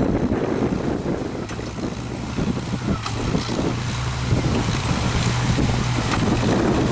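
Tractor engine running steadily while a 1954 McCormick-Deering 55-T hay baler runs behind it baling alfalfa, with wind buffeting the microphone.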